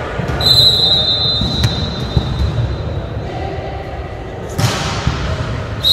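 Volleyballs thudding on a gym floor and players' voices echoing in a large sports hall. A steady high-pitched tone starts about half a second in and fades out over the next couple of seconds, and a louder knock comes near the end.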